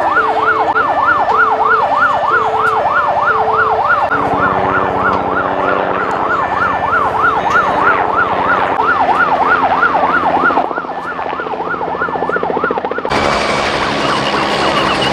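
Emergency vehicle siren in a fast yelp, its pitch sweeping up and down about three times a second, with a lower steady hum joining about four seconds in. The siren cuts off suddenly near the end and gives way to a busier, noisier sound.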